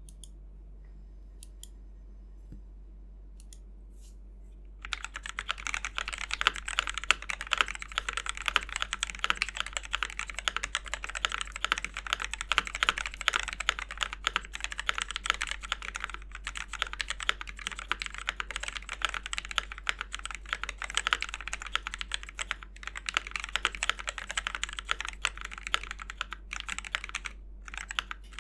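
Mechanical keyboard with Gateron Yellow linear switches being typed on fast and continuously, a dense stream of key clacks that starts about five seconds in after a few faint clicks.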